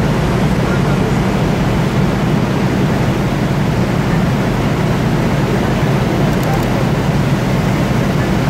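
Fire apparatus engines running steadily to pump water to the aerial master streams, a loud continuous rumble mixed with the broad rush of water streams and the burning fire.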